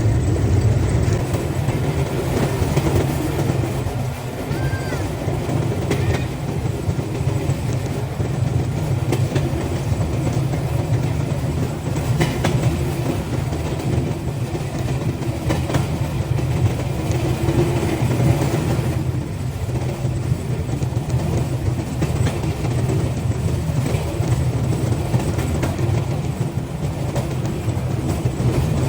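Pedal rail bike's steel wheels rolling along the rails: a steady low rumble with occasional clacks.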